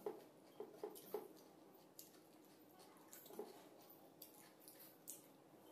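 Faint soft squishes and light clicks of fingers mixing cooked rice on a stainless steel plate, several in quick succession in the first second or so, then a few scattered ones.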